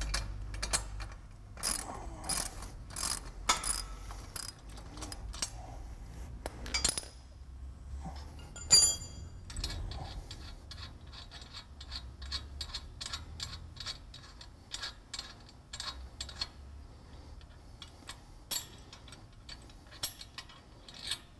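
Socket ratchet clicking as the 3/4-inch bolt holding a manual jack to the axle is loosened, at first in separate clicks about half a second apart. About nine seconds in there is one loud metal clank, followed by faster, lighter clicking and tapping of metal parts.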